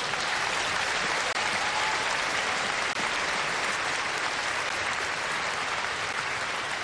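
A large audience applauding, a steady, even clapping.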